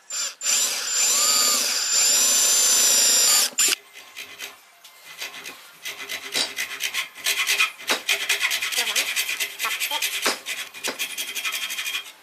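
An electric drill runs for about three and a half seconds, boring a hole through a thin strip of wood, its motor pitch shifting as it cuts. Then a hacksaw cuts across the wooden strip in quick, even back-and-forth strokes.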